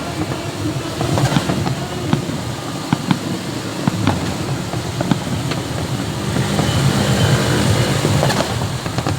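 Fireworks at close range: scattered sharp pops and crackles, about one or two a second, over a steady low rumble that swells in the second half.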